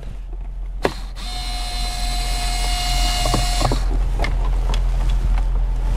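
Cordless electric screwdriver with a 7 mm socket bit whining steadily for about two and a half seconds as it backs a screw out of plastic dashboard trim. Its motor stops and a few light clicks and taps follow. A steady low hum runs underneath.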